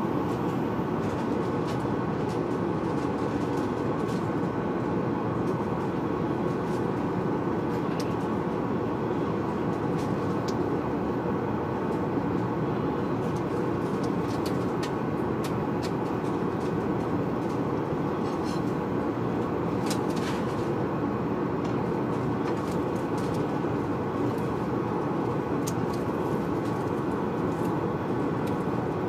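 Steady airliner cabin noise at cruise altitude: an even, unbroken rumble, with a few faint clicks here and there.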